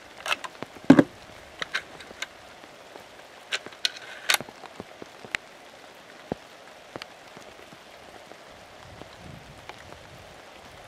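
Rain pattering steadily, with sharp metallic clicks and clacks of a Norinco M305 (M14-pattern) rifle's action being worked by hand as a round is chambered. The loudest knock comes about a second in, and a few more follow around four seconds in.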